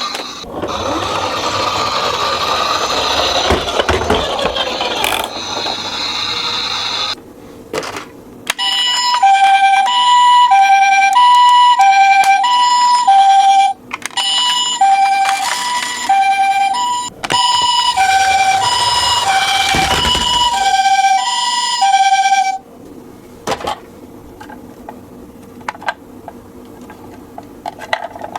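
A two-tone ambulance siren alternating steadily between a high and a low note for about fourteen seconds in the middle, sounding for toy minicars on an emergency run. Before and after it, the rattling, rolling noise of the toy cars running down the slope.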